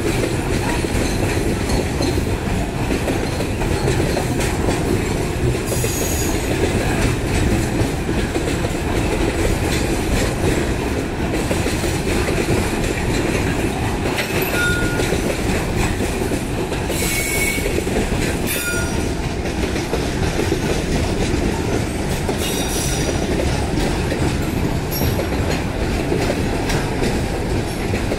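Loaded freight wagons, boxcars and hoppers, rolling steadily past with a continuous heavy rumble of steel wheels on the rails. Several brief, high wheel squeals come through now and then.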